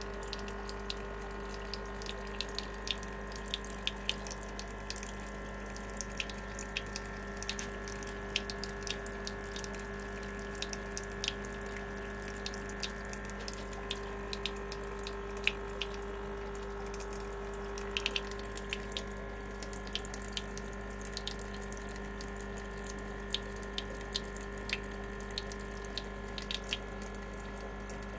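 3D printed aquarium overflow draining, water trickling with irregular drips and splashes over a steady hum.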